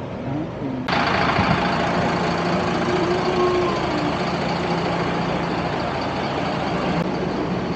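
Diesel engine of a MAN coach bus idling at the stop, a steady hum with a faint high whine, coming in abruptly about a second in.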